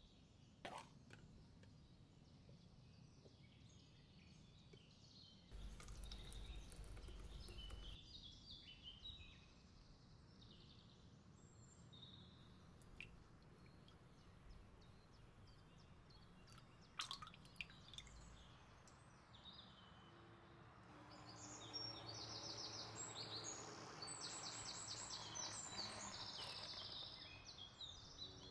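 Faint birdsong: short high chirps and trills, coming thickest over the last several seconds, over a low background hum.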